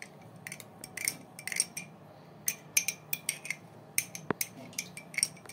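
A spoon clinking against the inside of a small glass cup in quick, irregular taps, stirring food colouring into melted ghee, with one heavier knock about four seconds in.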